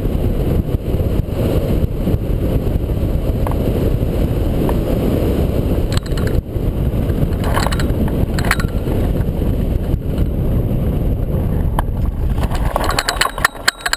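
Steady rush of wind over the microphone of a camera on a hang glider in gliding flight, mostly a low rumble. Near the end, clicks and rattles come in as the glider comes down to land.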